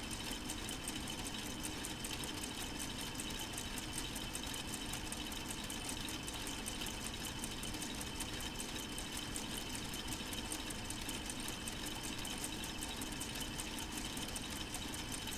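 Solar-powered K'Nex plastic model four-cylinder engine running steadily: a rapid, even clatter of plastic crank and piston parts turning, with a steady faint whine.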